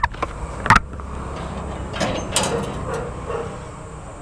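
Steel gate being unbolted and pushed open. There are two sharp metallic clanks of the bolt, the first at the very start and the second under a second in. Rattling follows about two seconds in as the gate moves.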